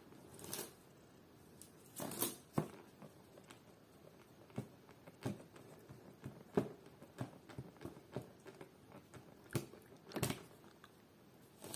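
Folding hand fan with wooden ribs being flapped and swatted by a Maine Coon kitten: irregular light taps and clacks with a few louder swishes, the biggest about half a second, two seconds and ten seconds in.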